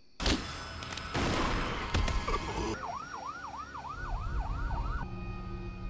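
Emergency-vehicle siren in a fast yelp, sweeping up and down about four times a second from about three seconds in until about five seconds in. Before it comes a rush of noise with a few sharp thumps, and after it a low steady hum.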